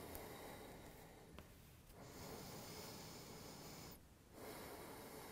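Faint, slow breathing of a person close to the microphone: long breaths of about two seconds each, with short pauses between them.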